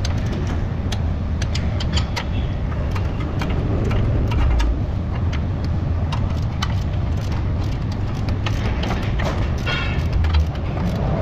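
Ratchet clicks and short metallic taps as the strut-to-knuckle bolt is turned with a long-handled socket wrench while a spanner holds the nut. A quick run of ticks comes near the end. A steady low hum runs underneath.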